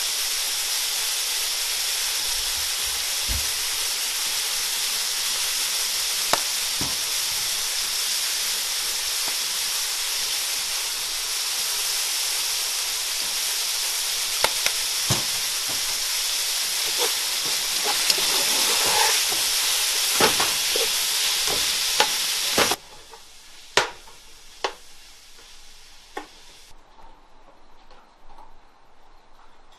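Ground beef and diced vegetables sizzling steadily in a frying pan, with occasional clicks. The sizzling stops abruptly about three-quarters through, leaving a quieter stretch with a few knocks.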